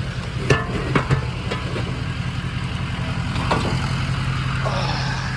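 A steady mechanical hum: a constant low tone over an even hiss, broken by a few sharp knocks in the first two seconds and one more about three and a half seconds in.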